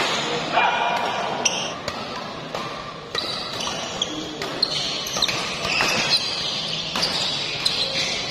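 Doubles badminton rally in a sports hall: rackets strike the shuttlecock roughly once a second, with short squeaks of shoes on the court floor between the hits and voices in the background.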